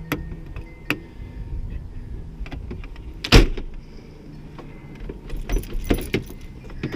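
Scattered clicks and knocks from the reinstalled third-door handle and its trim on a 2001 Chevy S10 being handled and worked, with one louder clunk about three seconds in and a quick run of clicks near the end. The handle is still loose and its aftermarket clips do not hold it firmly.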